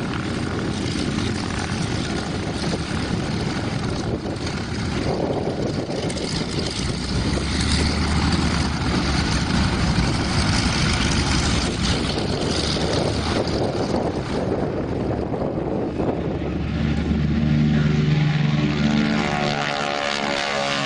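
Ford Trimotor's three radial engines and propellers running hard as the airliner takes off, a steady heavy drone. In the last few seconds, as it climbs away, it grows a little louder and the engine tones come through more clearly, with a wavering sound over them.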